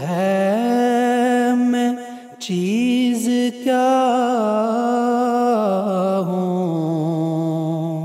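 A man's voice singing an Urdu nazm unaccompanied, in long held notes with slow wavering ornaments, with two brief breathing pauses around the middle.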